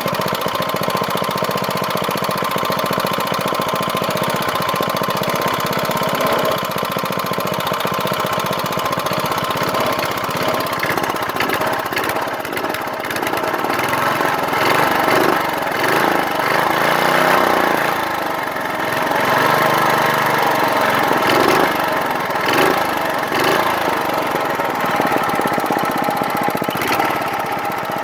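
1995 Briggs & Stratton single-cylinder small engine running. It runs steadily at first, then its speed rises and falls several times through the middle.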